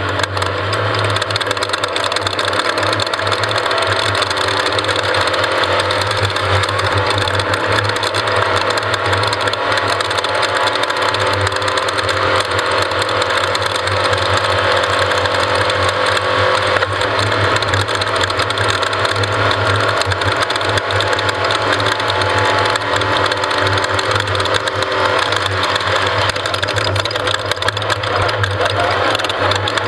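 Off-road race vehicle's engine running steadily and loudly, with no let-up.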